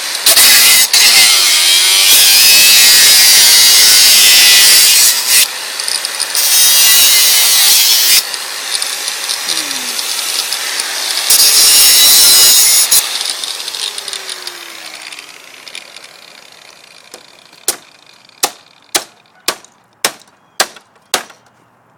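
Handheld rotary tool with a cutting wheel grinding through a metal bracket, really loud and high-pitched, in three hard passes with lighter cutting between, then the tool spins down with a falling pitch. Near the end, a run of sharp clicks about two a second.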